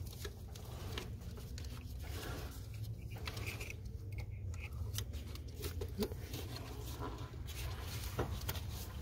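Light clicks and rustling of gloved hands working the plastic wiring connectors and fuel-rail parts of an engine bay, with a couple of sharper ticks near the end, over a steady low hum.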